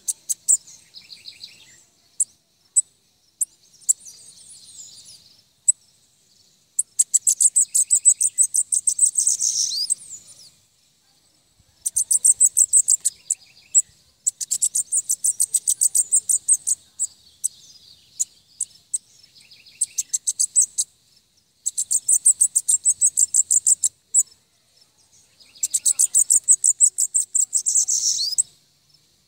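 Caged bananaquit (sibito) singing: a string of high, rapid, buzzy trilled phrases, each two to three seconds long, about six in all with short pauses between.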